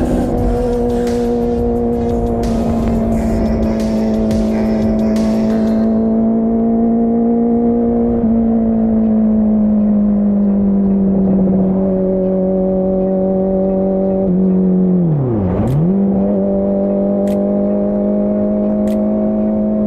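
Honda CBR650R inline-four running through an IXIL full-system exhaust with the dB killer removed, held at a steady engine speed while riding. The note drifts slightly, then about three-quarters through the revs drop sharply and come straight back up before settling steady again.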